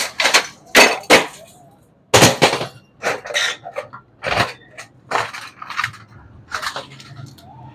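Metal clanks and knocks from hand tools striking and prying at the metal parts of a dismantled CRT television, a dozen or so irregular sharp strikes.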